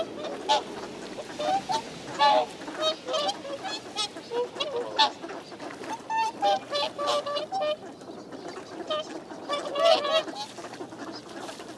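A flock of whooper swans calling: many short, overlapping honking calls, with a brief lull about two-thirds of the way through.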